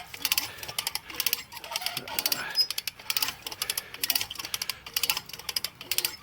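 Come-along hand winch being ratcheted: short runs of rapid clicking from the ratchet pawl, about two runs a second, as the handle is pumped to draw the cable tight under the load of a tree being pulled over through snatch blocks.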